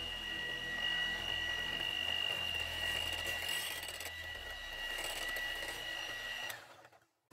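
Electric hand mixer running steadily with a high whine, its twin beaters whisking a thin milk custard mixture in a glass bowl. The sound cuts off suddenly near the end.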